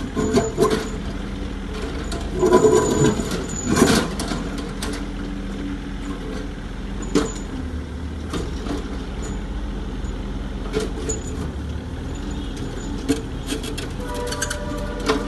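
Excavator running with a steady engine hum, with several knocks and clanks about two and a half to four seconds in and a brief whine near the end.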